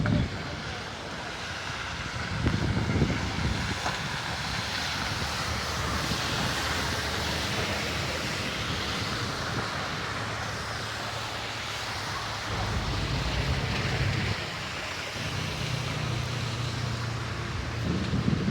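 Heavy rain falling in a steady hiss, with low rumbling that swells a few times: once about two seconds in, again about two-thirds of the way through, and near the end.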